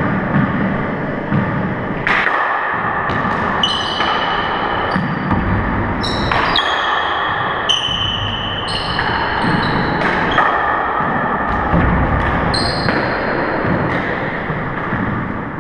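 Handball rally in an enclosed four-wall court: the ball smacks off the walls and floor again and again, echoing in the court, while sneakers squeak in short high chirps on the hardwood floor.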